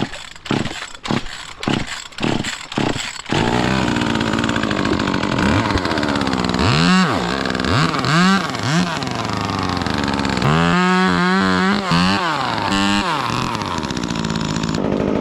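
Two-stroke chainsaw being pull-started: several quick pulls of the cord before it catches about three seconds in, then it runs and is revved up and down several times. It is a cold start on a frozen morning, and the saw is one that keeps cutting out.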